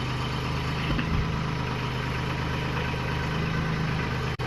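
Tractor engine running steadily at a low, even idle-like hum, with a split-second dropout near the end.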